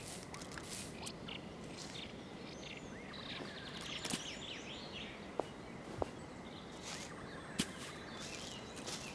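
Quiet woodland ambience with faint bird chirps, broken in the second half by a few short, sharp clicks.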